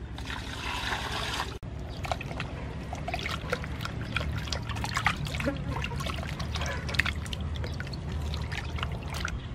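Water poured from a plastic bowl into a large aluminium basin of raw oxtail for about the first second and a half, then irregular splashing and sloshing as the meat is rubbed and washed by hand in the water.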